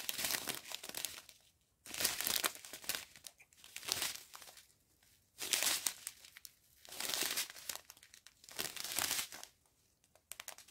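Strip of small clear plastic zip bags holding round diamond-painting drills crinkling as it is handled and turned over, in about six bursts of a second or so with short pauses between.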